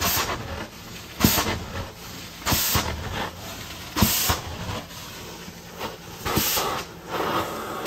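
Carpet-cleaning wand of a truck-mounted hot water extraction machine being stroked across carpet. A steady machine hum runs underneath, and four loud hissing rushes come every second or two as the wand works.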